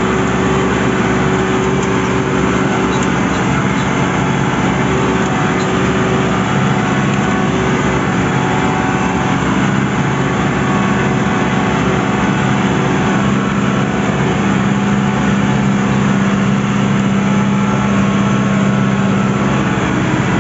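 New Holland 7630 tractor's diesel engine running steadily under load while pulling a disc harrow, heard from the driver's seat.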